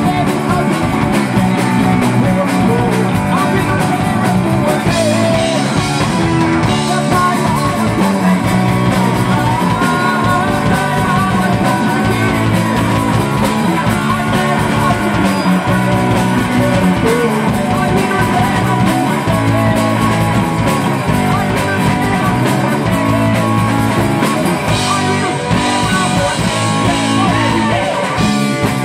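Live rock band playing: electric guitar, bass guitar and drums, with a man singing over them.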